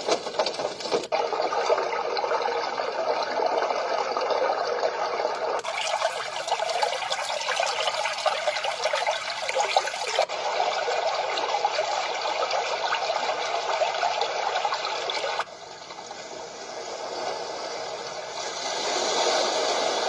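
Sleepbox portable rechargeable white noise machine playing its built-in sounds through its small speaker: a steady, continuous noise that switches abruptly to a different sound about every five seconds as its button is tapped.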